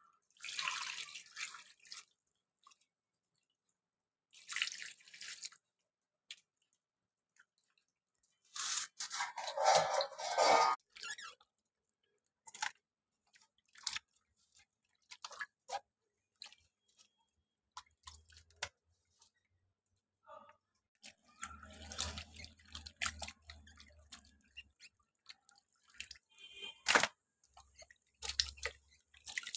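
Raw chicken pieces being washed by hand in a steel bowl of water: irregular splashes, squelches and drips, with the loudest rush of water about nine to eleven seconds in.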